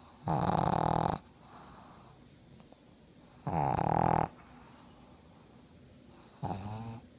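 Black pug snoring: three loud snores, each under a second, about three seconds apart, with faint breaths between them; the last snore is shorter and quieter.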